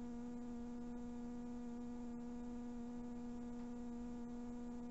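Steady electrical hum: one low tone with a string of evenly spaced overtones, holding level and pitch throughout.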